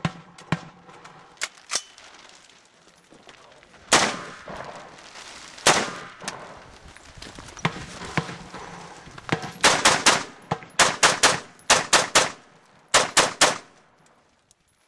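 Rifle fire from AR-15-style carbines. A few scattered shots come first, then two loud shots about a second and a half apart with a long echo after each. The last third holds rapid strings of three to five shots each.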